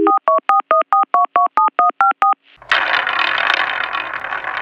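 Touch-tone telephone dialing: a dial tone cuts off and a quick run of about eleven two-tone keypad beeps follows, about five a second. Then, a little past halfway, a dense rattling clatter of a spinning prize wheel takes over.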